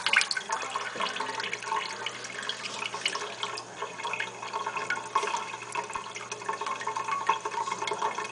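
Water leaking from a faucet patched with tape: a steady trickling hiss with many small drips and splashes. The tape repair is not holding the leak.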